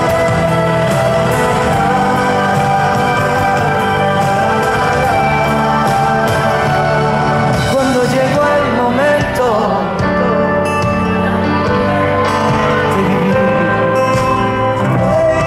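A Spanish pop song playing: a band with singing.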